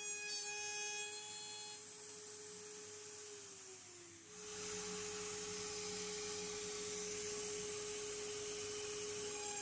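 AMB/Kress FME1050 router spindle on a CNC machine running at speed with a steady high-pitched whine. A few seconds in the pitch sags briefly, then the whine steadies and a steady hiss joins it.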